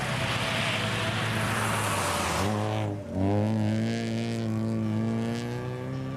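Daihatsu Charade 4WD rally car's engine at high revs with a loud hiss of studded tyres on the icy road. About three seconds in the revs drop sharply, then climb steadily as the car accelerates away.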